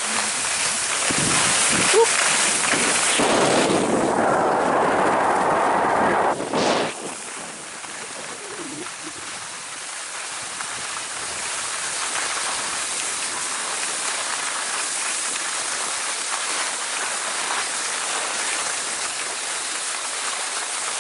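Skis sliding over packed snow with wind on the microphone: a steady hiss that is louder for the first several seconds, then drops to a quieter, even hiss.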